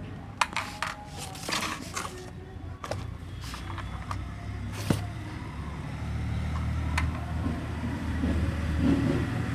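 Car engine running with a low steady hum that grows louder a few seconds in, with several sharp clicks and knocks over it.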